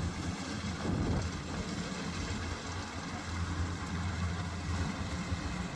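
Kubota DC-108X combine harvester running steadily at work, a continuous low engine hum with a wash of mechanical noise over it.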